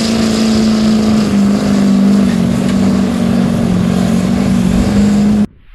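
Chevrolet Silverado pickup's Duramax V8 turbodiesel running hard and steady under heavy load as it drags a weight-transfer pulling sled, its note dropping slightly in pitch twice as the sled bears down. The sound cuts off suddenly near the end.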